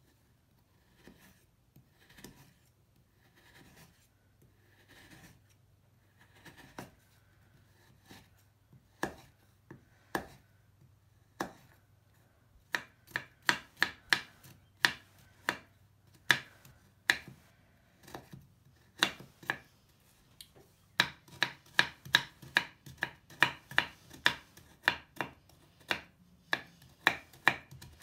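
A knife cutting through a crumbly Lush bubble bar and knocking on a wooden cutting board. It starts with soft, slow slicing, then turns into a run of sharp chops that quickens in the last third.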